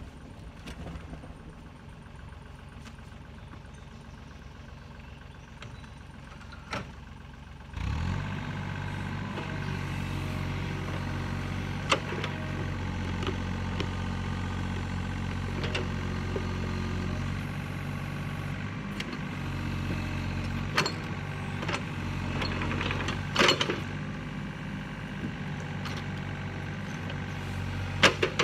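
Yanmar mini excavator's diesel engine, running low at first, then rising suddenly to a steady higher speed about eight seconds in as the machine digs at a tree stump. Sharp knocks and clanks of the bucket striking roots and dirt a few times.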